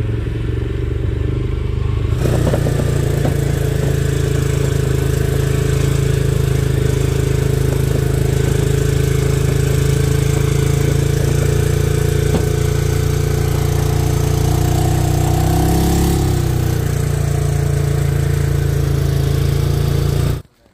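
Side-by-side utility vehicle's engine running steadily as it drives along a dirt track, with a broad rushing of wind and tyre noise. It gets louder about two seconds in and cuts off suddenly near the end.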